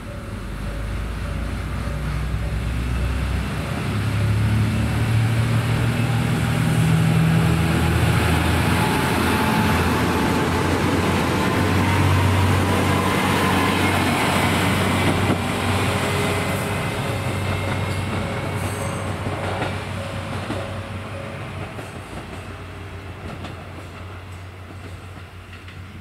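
JR Kyushu KiHa 220 diesel railcar pulling away from a station: its diesel engine running under power with a rising whine as it speeds up, getting louder as it passes close by. It then fades as it moves off, with wheels clicking over the rail joints.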